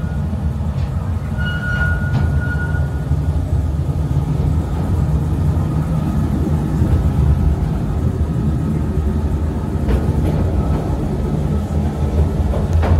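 Mail Rail's narrow-gauge electric passenger train running through a tight tunnel, heard from on board: a steady low rumble of wheels on rails, with a faint thin whine above it. Two sharp clicks come through, one about ten seconds in and one near the end.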